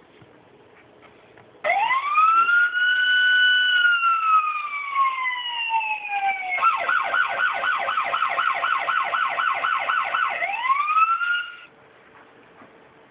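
Electronic police siren from a 1/18 diecast police car model's sound module. It starts about a second and a half in with a rising wail, holds, falls slowly, switches to a fast yelp of about four warbles a second, then rises once more and cuts off suddenly near the end.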